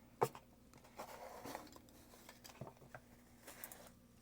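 Faint handling of a small watch box as it is opened: a sharp tap about a quarter second in, then soft rubbing and a few scattered light clicks.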